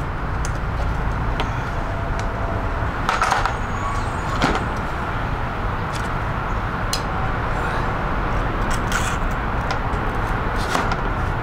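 A steady low motor hum, with a few light clicks and taps of bike parts being handled at the headset.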